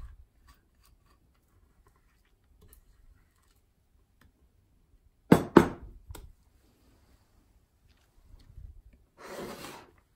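Silicone spatula scraping thick batter from a glass bowl into a glass baking dish: faint scraping and ticks, then two sharp knocks in quick succession a little past halfway, the loudest sounds, followed by a lighter knock. Near the end comes a short scrape of the spatula spreading batter across the dish.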